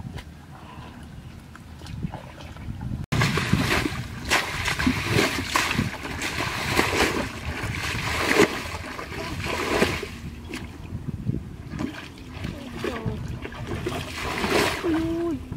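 Muddy ditch water scooped up with a basin and thrown out, making repeated irregular splashes; the water is being bailed out of the channel to get at the fish. The splashing starts abruptly about three seconds in, after a quieter stretch.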